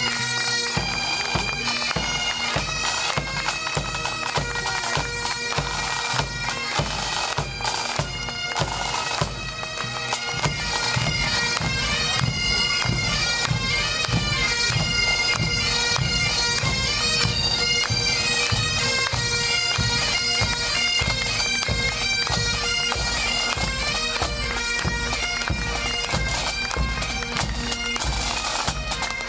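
Pipe band playing a march: bagpipes with their steady drone under the tune, and drums beating time.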